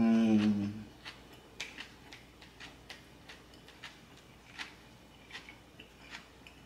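A man's closed-mouth "mmm" of enjoyment, falling in pitch and lasting under a second, then the small wet clicks and smacks of him chewing a big mouthful of lettuce wrap, about two a second.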